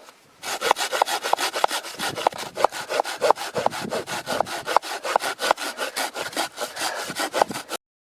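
Hand saw cutting through a piece of scrap firewood in quick, even back-and-forth strokes, several a second, stopping abruptly near the end.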